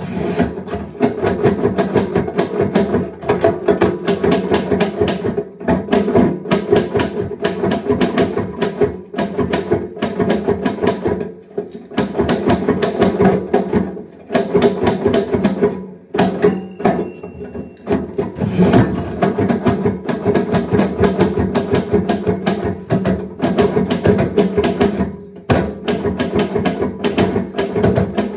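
Typewriter keys striking in fast runs of many clicks a second, broken by short pauses. About 16 seconds in, a short bell ring marks the end of a line.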